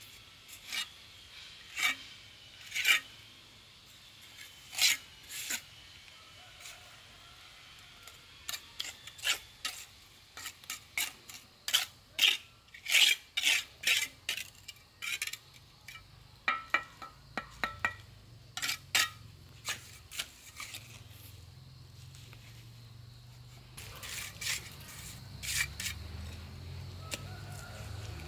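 Hard objects handled and set down, an irregular run of sharp clinks and knocks, densest in the middle. A low hum comes in near the end.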